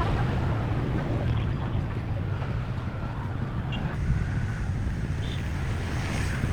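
Steady low rumble with wind noise on the microphone, typical of a moving vehicle.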